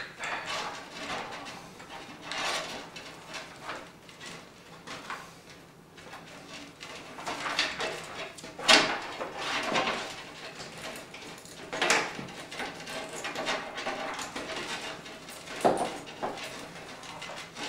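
Hands working a power cable connector into place inside a PC case: irregular rustling, scraping and plastic clicks, with sharper knocks about nine and twelve seconds in.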